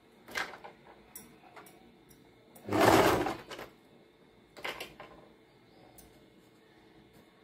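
Electric sewing machine stitching in short stop-start runs while gathers are set by hand. The longest run lasts about a second around the middle, with briefer, weaker sounds near the start and about two-thirds in.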